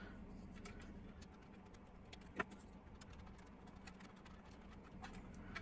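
Faint small clicks and ticks of a small screwdriver working a tiny screw on a plastic HO-scale model locomotive shell, with one louder click about two and a half seconds in.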